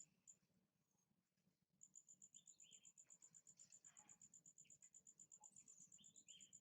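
Faint insect chirping: a rapid, even train of high-pitched pulses, about nine a second. It breaks off for a moment near the start and resumes about two seconds in. A few short, fainter chirps sound over it.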